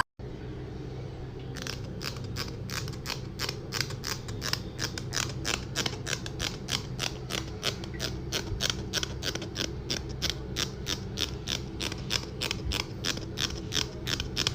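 Steady mechanical clicking, about three to four clicks a second, over a continuous low hum.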